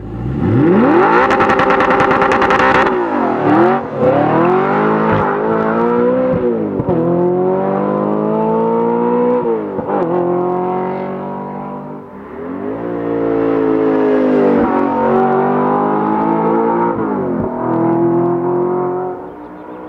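Audi R8's 4.2-litre V8 through a Fast Intentions aftermarket exhaust, revving hard several times. Each time its pitch climbs steadily, then drops back sharply before climbing again.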